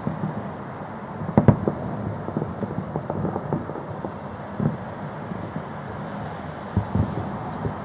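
Fireworks salute: distant shell bursts booming at irregular intervals, the loudest a quick pair about a second and a half in, over steady background noise.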